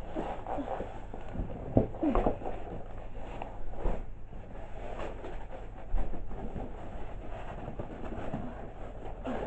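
Model train running on its track: a steady rumble with irregular clicking from the wheels and rails, and a few louder knocks.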